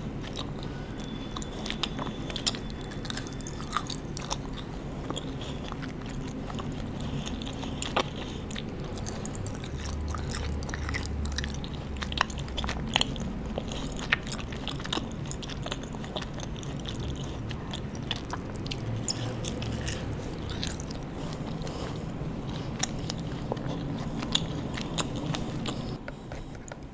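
Close-miked chewing of a pink gummy candy strip, with many short mouth clicks scattered irregularly.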